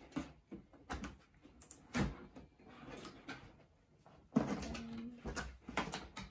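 Knocks and clatter of objects being handled. The loudest knock comes about two seconds in, and more clatter follows near the end with a short hum-like tone.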